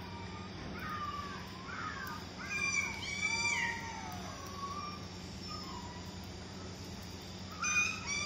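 Young puppy whining and yelping: a string of high-pitched cries that bend up and down, some sliding down in pitch. The loudest come about three seconds in and again just before the end.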